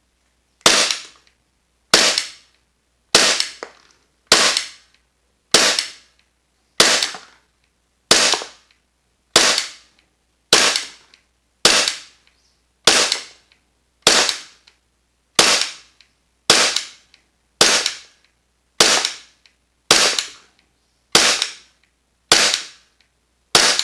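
VFC/Umarex Glock 45 gas blowback airsoft pistol, fitted with an energy-saving cylinder bulb and a strong spring, firing about twenty single shots at an even pace of roughly one every 1.2 seconds, each a sharp crack of the gas shot and slide cycling.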